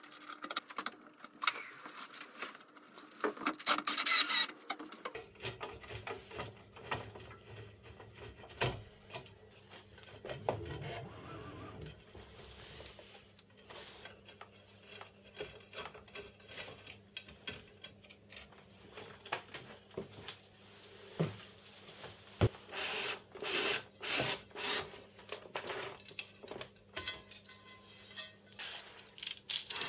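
Small clicks, taps and scrapes of screws, a screwdriver and aluminium extrusion parts being handled during hand assembly of a CNC machine frame, with a steady low hum starting about five seconds in.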